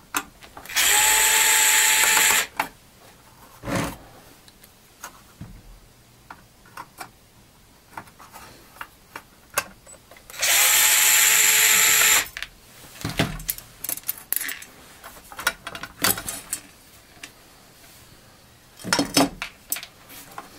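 Electric screwdriver running in two bursts of under two seconds each, backing out the screws that hold the front plate of a synthesizer. Short clicks and clatter of the metal plate and small parts being handled come between and after the bursts.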